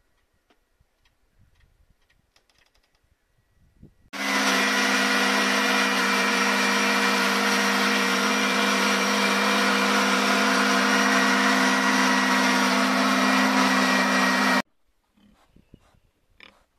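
Electric household grain crusher running steadily, a hum with a hiss over it, as grain is poured into its hopper. It starts about four seconds in and cuts off abruptly about ten seconds later.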